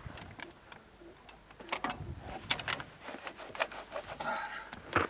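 Irregular knocks, clicks and rustling of bags and a cooler being pushed and packed into the rear cargo space of an off-road vehicle.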